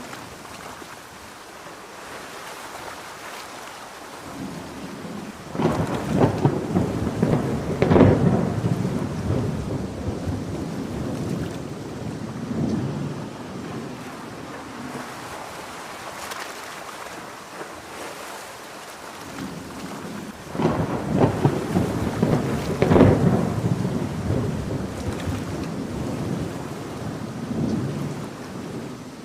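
Thunder rolling twice over steady heavy rain. Each roll starts suddenly, swells for a few seconds and fades slowly, the first about five seconds in and the second about twenty seconds in.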